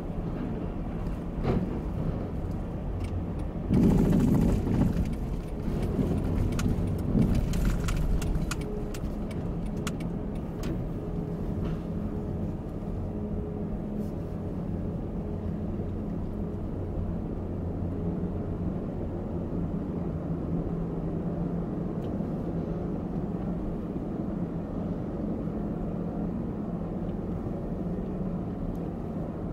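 A car's engine and tyre noise, heard from inside the cabin as it drives slowly onto a car ferry. From about four seconds in come several seconds of bumps and clatter as the tyres roll over the steel loading ramp onto the deck. After that there is a steady low hum.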